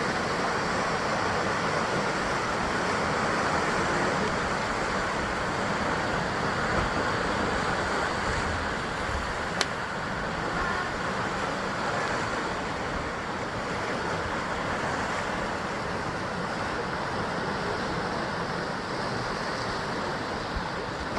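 Sea waves surging and breaking against the basalt column cliffs of the coast, a steady wash of surf that swells and eases slowly. One sharp click about ten seconds in.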